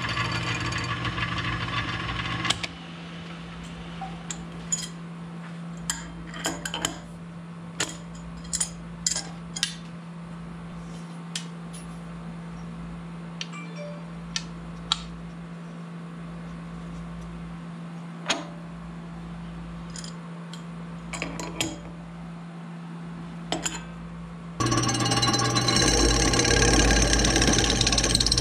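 A milling machine's end mill cutting an aluminum bar stops about two and a half seconds in. The machine keeps up a steady hum while scattered metal clinks and knocks come as the bar is slid along the vise. The cut starts again near the end, loud and steady.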